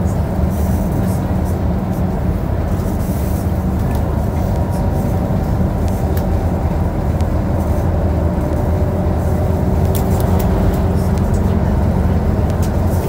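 Cabin noise of a Scania Citywide LEA city bus driving at a steady speed: an even engine hum with road and tyre noise and a few light rattles.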